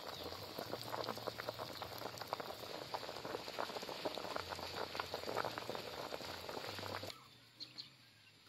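Pot of water at a rolling boil with whole custard apples in it: dense bubbling and popping. It cuts off abruptly about seven seconds in, leaving a quieter stretch with a few faint pops.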